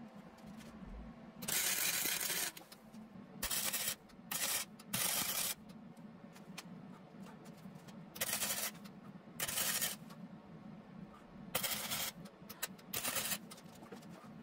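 Wire-feed (MIG-style) welder laying a series of short tack welds on a scooter frame: about eight bursts of arc hiss and crackle, each half a second to a second long, with a steady low hum between them.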